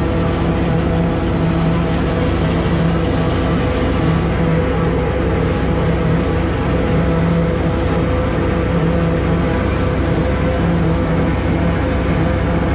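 John Deere 4620 tractor's six-cylinder diesel working under steady load, driving a John Deere 3940 pull-type forage harvester that is chopping hay and blowing it into a wagon. The engine and the harvester's cutterhead and blower run together at an even, unchanging speed.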